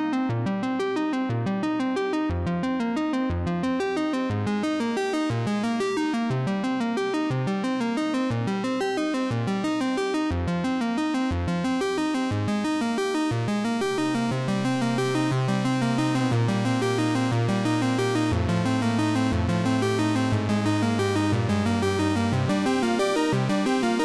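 Background music: a synthesizer and keyboard tune with quick repeated notes, joined about halfway through by held low bass notes.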